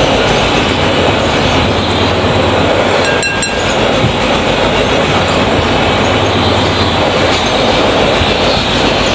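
Steady rumbling noise of sugar water heating in a wok over a stove burner. About three seconds in there is one short metallic clink of the steel slotted spoon against the wok.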